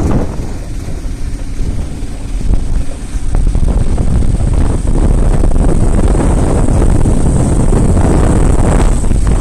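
Heavy wind buffeting the microphone over the running noise of a vehicle, getting louder a few seconds in.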